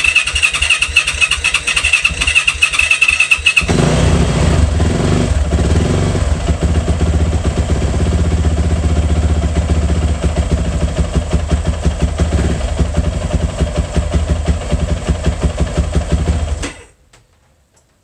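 2018 Yamaha YZ450F single-cylinder four-stroke engine cranked on its electric starter, a whirring whine for about three and a half seconds, then catching and running steadily. Near the end it cuts off suddenly as the magnetic tether kill switch is pulled.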